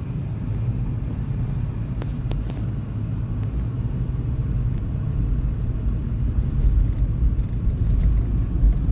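Road noise heard inside a moving car's cabin: a steady low rumble from the engine and tyres, growing a little stronger over the last few seconds.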